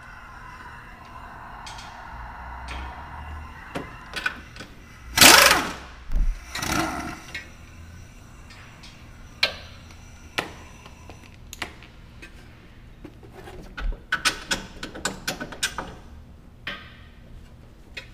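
Impact wrench run in two short bursts about five and six seconds in, loosening the 19 mm strut-to-knuckle nuts. It is followed by many scattered metal clinks and knocks as the parts are worked loose by hand.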